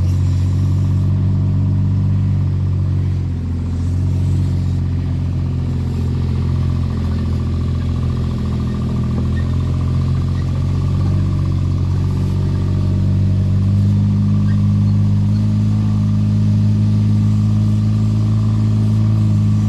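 An engine running steadily under load, with a slight rise in pitch about fifteen seconds in.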